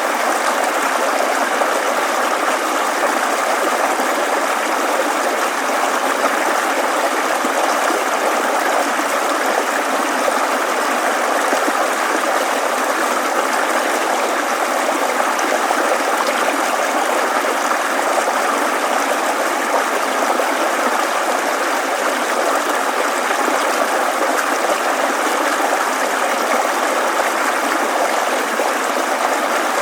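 Babbling stream, a steady rush of flowing water over stones with no breaks.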